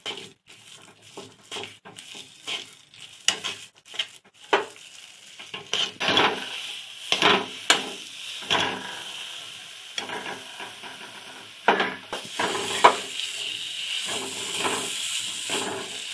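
A spatula scraping and knocking against a kadhai while mawa (khoya) is stirred and roasted dry, in irregular strokes about once a second. A soft sizzle from the roasting mawa grows louder in the second half.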